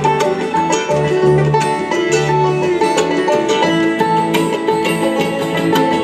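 Live bluegrass band playing an instrumental passage on banjo, fiddle, mandolin, acoustic guitar and upright bass, with no singing.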